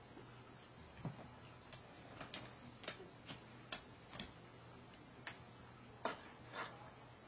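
Kittens play-fighting: faint, irregular light taps and clicks of their paws and claws, about a dozen, unevenly spaced.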